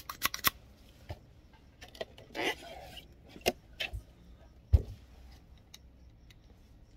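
Small sharp clicks and light knocks from an HP 713 printhead and its tools being handled, with a short hiss about two and a half seconds in and a dull thump, the loudest sound, just before five seconds.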